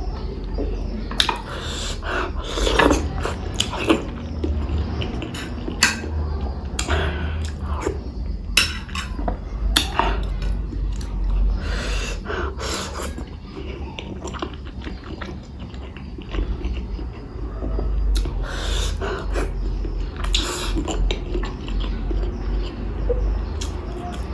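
A person eating boiled eggs with spicy tomato pickle close to the microphone: chewing with many short, sharp mouth clicks, and now and then the clink of a plate or utensil.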